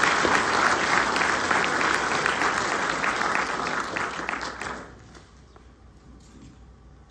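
Audience clapping, which dies away about five seconds in and leaves faint room noise with a few small knocks.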